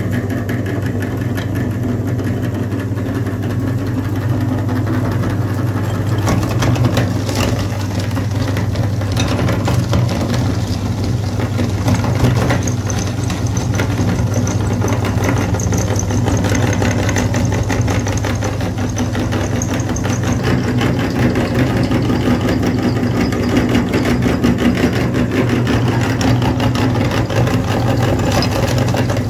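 Motor-driven cast-iron meat grinder running steadily with a low hum, crunching sticks of chalk into powder, with a constant crackle of breaking chalk.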